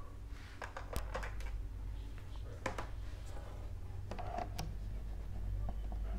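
Scattered light clicks and knocks of a power cord being handled and plugged into a speaker, over a steady low hum.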